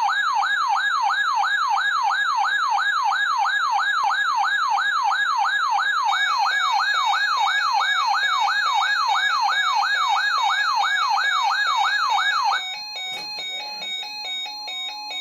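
A loud electronic siren tone wailing up and down, nearly three sweeps a second. About twelve and a half seconds in it cuts off and a quieter run of electronic notes steps through a short pattern.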